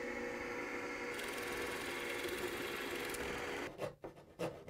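Electric drill motor running steadily while a 3/4-inch Forstner bit bores through a wooden stretcher, with a cutting hiss joining about a second in. The motor stops near the end and a few faint knocks follow.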